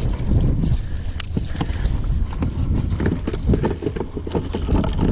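Irregular knocks and taps, thickest in the second half, over a steady low rumble of wind on the microphone.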